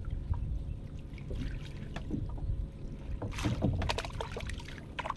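Water splashing and dripping as a wet collapsible hoop-framed mesh net trap is hauled up out of the water beside a small boat, with a louder splash about three and a half seconds in, over a steady low rumble.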